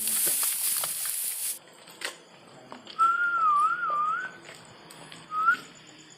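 A loud hiss cuts off suddenly about a second and a half in. Then comes a whistle: one wavering tone for just over a second, and after a pause a short rising whistle.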